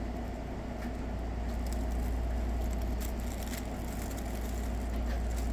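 A steady low hum runs throughout, with a few faint, scattered rustles of a fabric pop-up cat tunnel as a cat pushes its head into it.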